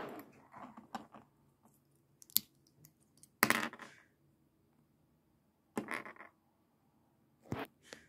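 Small plastic clicks and rustles as LEGO minifigure pieces are handled and moved about on a baseplate, in several short separate bursts.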